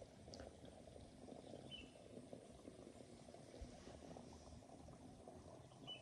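Faint sloshing and splashing of shallow water as a hand sweeps and gropes through it along a muddy bottom.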